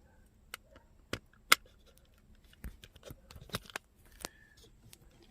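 Irregular sharp clicks and knocks of small objects being handled and rummaged through, about a dozen spread over a few seconds, the loudest about a second and a half in.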